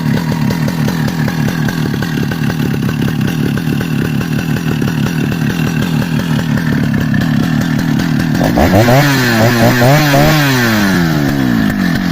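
A STIHL 076 chainsaw's 101cc two-stroke engine running steadily at idle. About eight and a half seconds in, it is revved up and down several times.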